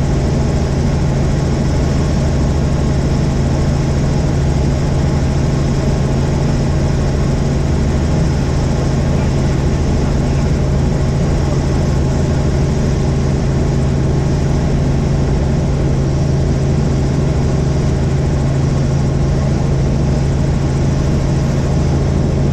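Helicopter in flight: a steady, loud drone of rotor and engine, with a strong low hum over a broad rushing noise that does not change.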